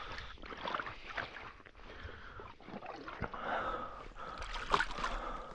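Water sloshing and splashing in irregular strokes, as someone moves through shallow marsh water.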